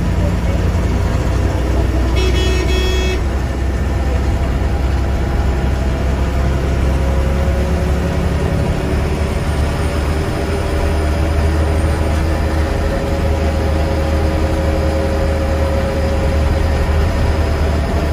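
KSRTC Sarige bus's diesel engine running under way, a steady low rumble with road noise. A high-pitched vehicle horn honks once, briefly, about two seconds in.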